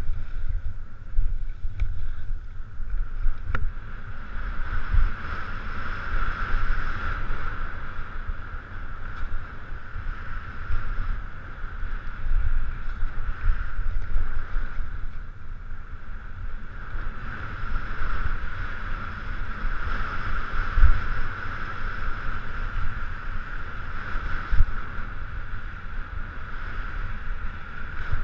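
Wind buffeting the microphone of a helmet camera on a downhill ski run, with the skis hissing and scraping over packed snow. The hiss grows and fades with the skier's turns.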